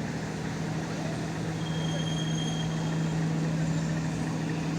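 Boat engine running with a steady, unchanging hum over a wide wash of noise.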